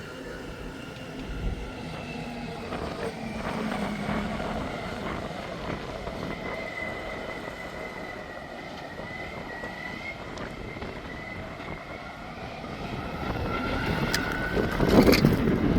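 Engine noise running steadily with a faint held whine, swelling louder near the end.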